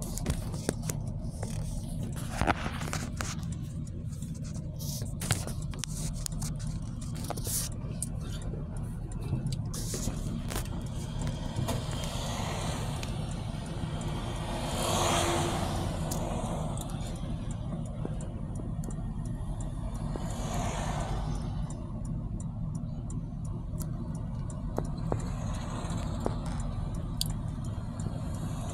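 Road traffic: a steady low rumble of vehicles, with a vehicle swishing past about halfway through and another about two-thirds in.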